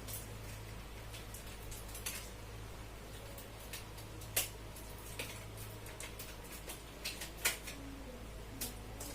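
Small objects being handled and set down: scattered light clicks and clinks, a couple of sharper knocks, over a steady low hum.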